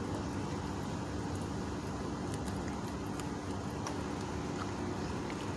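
Steady low rumble with a constant hum, and a few faint clicks.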